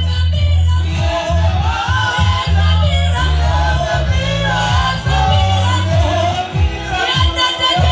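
Church worship music: voices singing over a loud, steady bass line.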